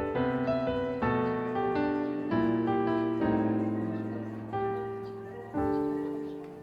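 Background piano music: gentle chords struck every second or so, each note fading, the last chord dying away near the end.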